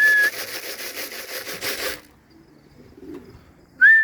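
A human whistle to call racing pigeons in, one steady high note, followed by about two seconds of fast rhythmic rattling; after a quieter pause, the same whistle and rattle start again near the end.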